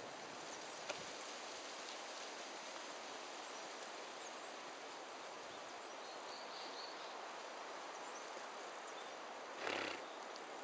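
Miniature horse sneezing once near the end: a short, breathy half-second blast over a steady faint outdoor hiss.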